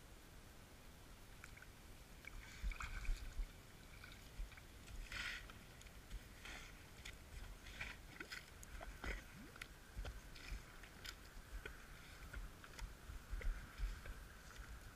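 Faint, irregular scuffs, clicks and soft thumps of rubber boots shifting and stepping on wet sand close by, loudest about three seconds in and again near the end, over a faint steady hiss.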